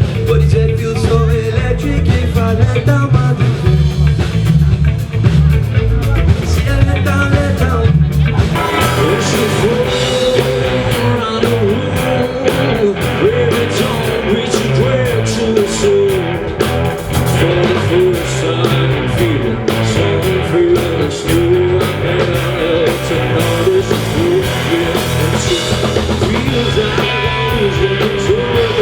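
Rock music with guitar and drum kit; the sound of the music changes about eight seconds in.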